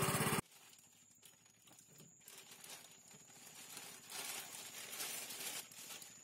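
A small boat engine runs for the first half-second and cuts off abruptly. Then come quiet rustling and light handling noises, louder from about four seconds in, over a faint steady high whine.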